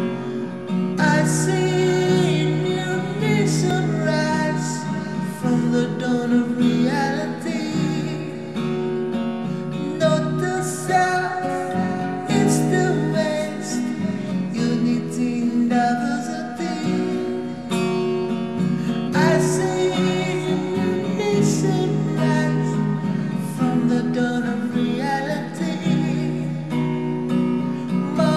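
Acoustic guitar song: strummed acoustic guitar chords with a melody line over them.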